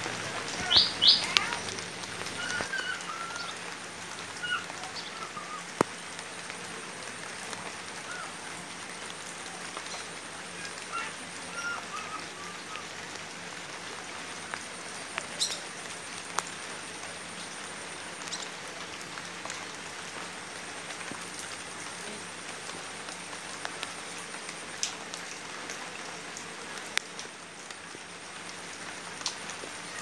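Light rain falling steadily on standing water and banana leaves, an even hiss with scattered louder drips. A bird gives a quick high trill about a second in, and fainter chirps follow over the next several seconds.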